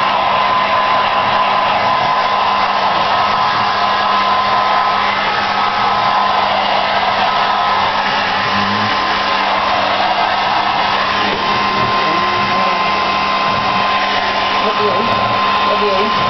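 Handheld hair dryer running steadily, blowing air onto a dog's wet chest fur, with an even rush of air and a constant whine.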